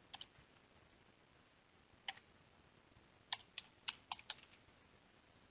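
Keystrokes on a computer keyboard: a few scattered presses, then a quick run of about five keys a little past the middle, over a quiet background.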